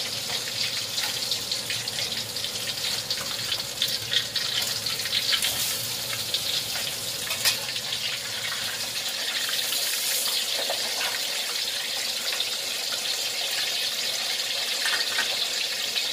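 Fish frying in hot oil in a wok: a steady sizzle with sharp crackles and spits of oil scattered through it.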